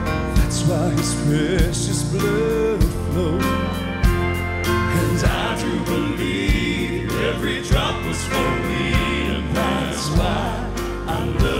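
Southern gospel male vocal quartet singing live with a band of piano, drums and bass, the drums striking on a steady beat.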